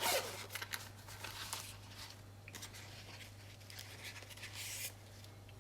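Small clicks and short rustles of a handheld testing tool being picked up and handled, over a steady low electrical hum.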